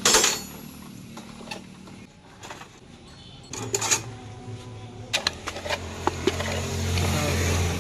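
A sharp knock, then scattered metallic clicks and knocks, with a low steady motor hum that starts about halfway and grows louder near the end.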